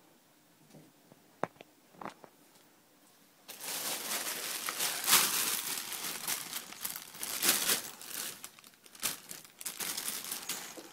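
Clear plastic bag crinkling and rustling loudly as it is jostled about on carpet. It begins about three and a half seconds in, after a few faint taps, and goes on in uneven bursts with a short lull before the end.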